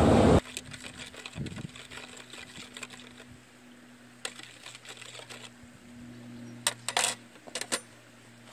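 A metal spoon stirs sauce in a small ceramic bowl with light clinks, then several sharper clinks about seven seconds in as the spoon is tapped and set down. A loud rushing noise cuts off suddenly in the first half second, and a faint low hum sits underneath.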